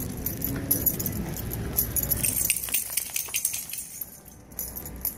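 Light metal jingling and clinking from small hardware moving as the walker and dog go along, irregular, softening briefly about four seconds in.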